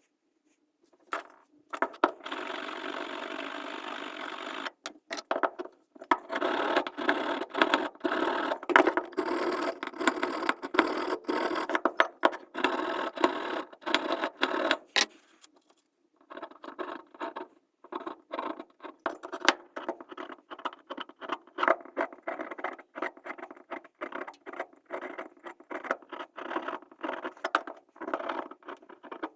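A small brush scrubbing rust out of a furnace's gas burner holes: fast scratching strokes, a short pause about halfway through, then lighter, quieter strokes.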